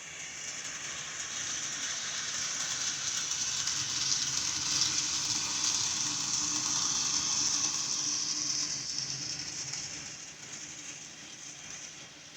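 HO scale model train, led by a ScaleTrains ET44AC locomotive, running past on the track: its motors and wheels make a steady hiss and hum that grows louder to a peak midway, then fades as the train moves away.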